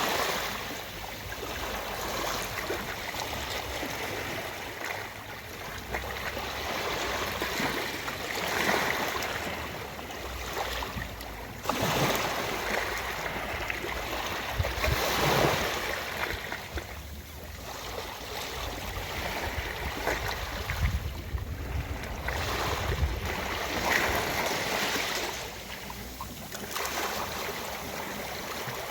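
Ocean waves washing onto a beach, the surf swelling and falling away every few seconds.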